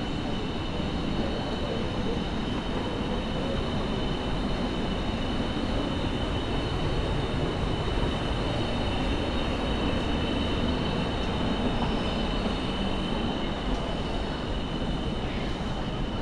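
Steady low rumble and hum of an underground railway-station concourse, with a faint steady high whine over it.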